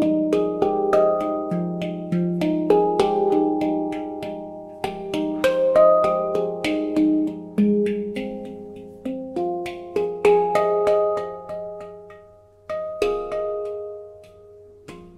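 F Pygmy handpan, a 10-note nitrided steel instrument, played by hand: a run of struck notes that ring and overlap and slowly fade, with a short lull near the end before the notes start again.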